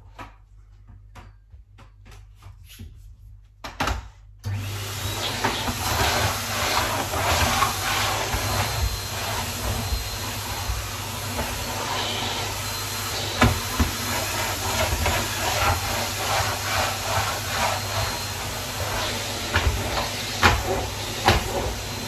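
Henry canister vacuum cleaner running steadily, starting abruptly about four seconds in after a quieter stretch of light clicks and taps. Frequent clicks and knocks sound over the motor.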